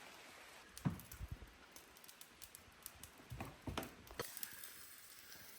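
Faint steady hiss of rain with scattered soft knocks, a cluster about a second in and another around three and a half to four seconds in.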